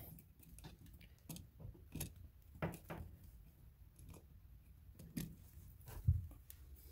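Faint, scattered clicks and light taps from handling an electrical outlet, its wires and a screwdriver while wiring a terminal.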